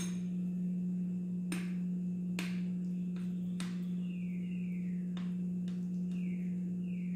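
Metal spoon tapping and scraping against a ceramic bowl while raw beef meatball dough is smoothed flat: several sharp clicks and a few short falling squeaks, over a steady low hum.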